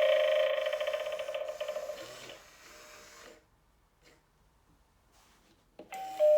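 Animated Halloween doorbell prop sounding through its small speaker: a loud electronic buzzing tone with a fast flutter that fades out about two to three seconds in. Near the end a click and a new electronic tone starts.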